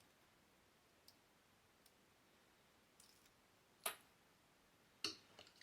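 Near silence broken by a few faint ticks and two sharper clicks, one just before four seconds in and one about five seconds in, from small parts being handled on a work surface.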